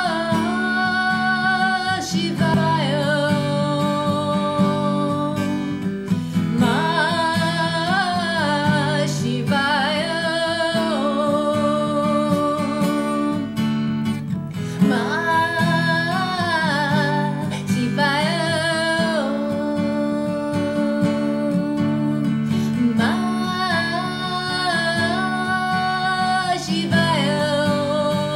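A woman singing to her own acoustic guitar: long held notes with a slight waver over steady strummed chords.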